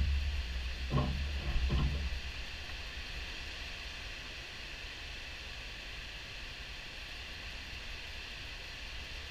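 Steady rushing roar of river water pouring over a diversion dam's gates at high flow and churning below. In the first two seconds there are a low rumble and three short thumps, which then die away.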